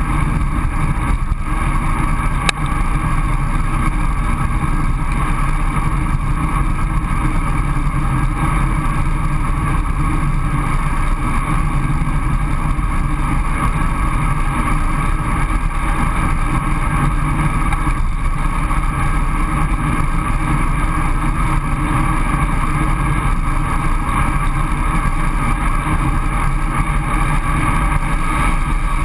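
Steady rush of wind over an action camera's microphone, mixed with road and tyre noise, as a road bike rolls downhill at speed. A faint tick about two and a half seconds in.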